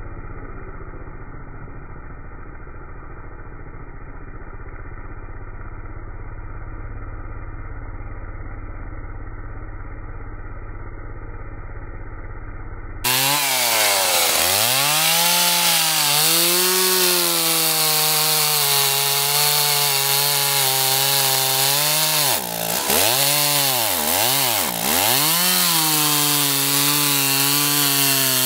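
A chainsaw cutting steadily through a log, dull and muffled. About halfway through it gives way to a louder, clearer Stihl 028 AV Wood Boss two-stroke chainsaw cutting a log: the repaired saw's engine pitch sags as it bites into the wood and climbs again, with several quick dips near the end.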